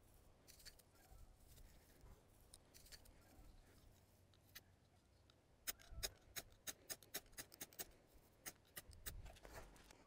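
Dry twigs and tinder being handled and laid out on bare rock for a fire: a few faint clicks, then, from about the middle, a quick irregular run of sharp clicks as the small sticks are set down and knock together.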